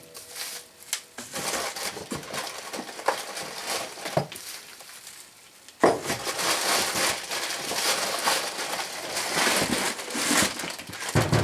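Packaging being handled during unpacking: plastic wrap crinkling and cardboard rustling with scattered small knocks. It is fainter at first, dips almost to quiet about halfway, then turns louder and busier.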